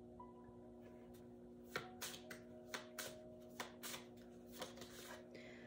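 Tarot cards being handled: a run of about ten short, irregular card snaps and slaps over a few seconds, over faint, steady background music.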